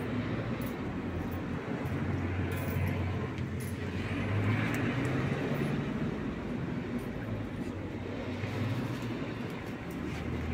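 Low rumble of road traffic that swells about halfway through, with faint clicks of a cat crunching dry kibble.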